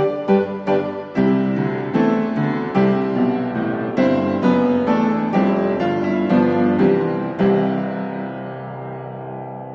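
Background piano music: notes and chords struck at a steady pace, ending on a chord that is held and fades away over the last two seconds.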